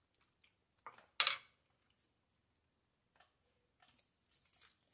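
A metal spoon clinking against a glass bowl, with one loud clatter about a second in. Scattered faint clicks and taps follow near the end.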